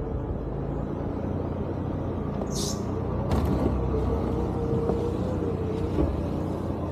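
Third-generation Toyota 4Runner crawling slowly over rocks, its engine running with a steady low drone and a faint wavering whine. A short high scrape or squeak about two and a half seconds in.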